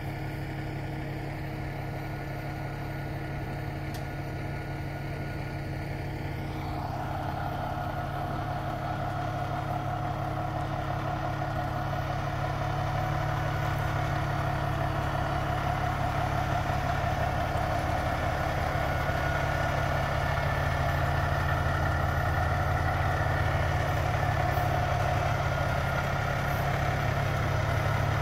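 Heavy diesel engine idling steadily, most likely the semi tractor's, with a higher hum joining about a quarter of the way in and the sound growing gradually louder.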